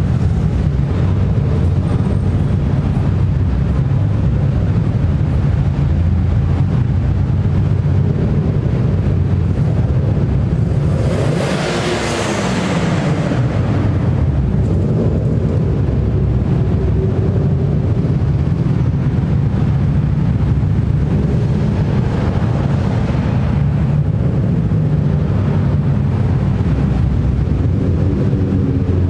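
Car engines and exhausts in a slow procession through an underground parking garage: a steady low rumble, with a louder swell of noise about eleven to thirteen seconds in and a smaller one near twenty-two seconds.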